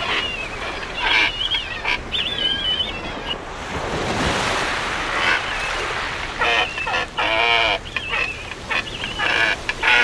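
Seabird colony calling: repeated high, wavering calls, with a wash of surf swelling in the middle and a run of louder, harsh calls in the second half.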